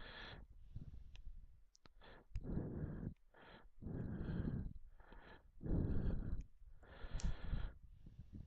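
A person breathing heavily close to the microphone, a series of noisy breaths about a second apart, with a few faint clicks between them.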